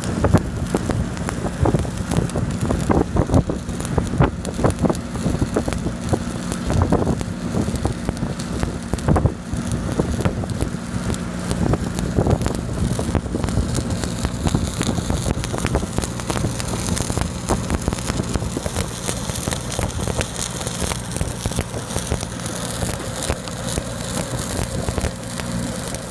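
Shielded metal arc (stick) welding on steel pipe: the arc crackling and sizzling steadily, with uneven pops. Under it runs the steady hum of an engine, the engine-driven welder on the welding rig.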